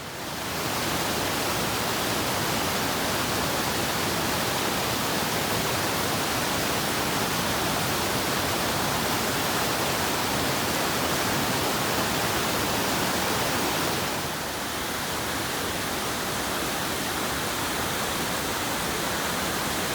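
Happy Creek's water rushing steadily, a constant even roar that gets a little quieter about fourteen seconds in.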